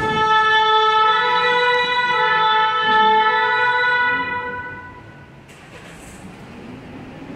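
Fire-service emergency vehicle's two-tone siren sounding: a loud pitched tone with many overtones that starts abruptly, then fades away about four to five seconds in.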